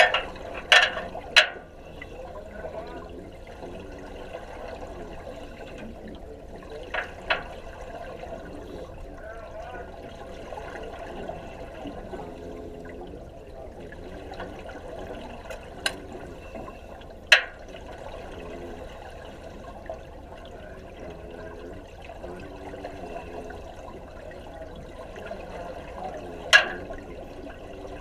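Steady bubbling, rushing water noise picked up underwater in a welding training tank, with a few sharp cracks: two near the start, a couple midway and one near the end.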